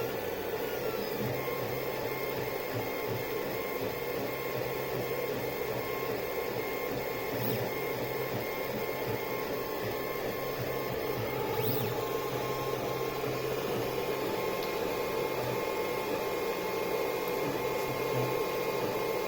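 Lulzbot TAZ 5 3D printer running a print: its stepper motors give off thin steady tones that switch on and off and change with each move, over a steady whir.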